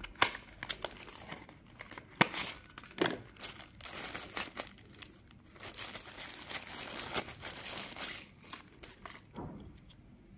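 Smartwatch packaging being unwrapped by hand: a cardboard sleeve and a thin plastic bag crinkle and rustle in irregular spells, with a few sharp clicks. It grows quieter near the end.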